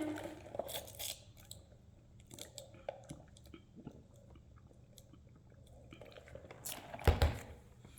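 A person drinking water in sips and gulps, with soft clicks and swallowing sounds, then a dull thump near the end.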